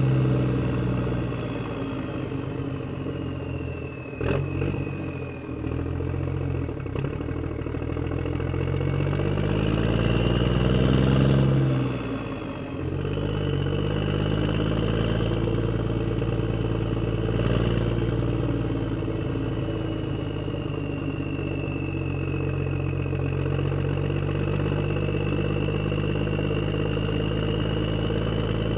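A steady engine drone with a high whine, its pitch slowly rising and falling and swelling about ten seconds in, with one sharp click about four seconds in.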